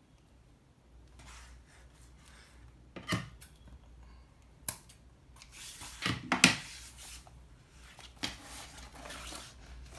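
Scissors snipping through the synthetic material of a pouch's edge in a few separate cuts, the loudest a little past the middle. Near the end the fabric rustles as it is handled.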